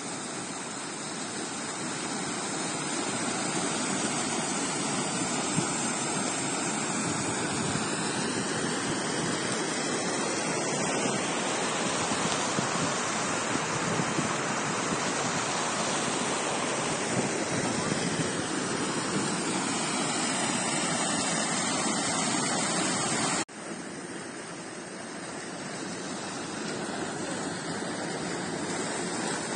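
Rushing storm water: a torrent of rainwater gushing out of an overflowing storm drain and running downhill, a steady loud rush. It cuts off suddenly about 23 seconds in, and a quieter churning of floodwater pouring into the river follows.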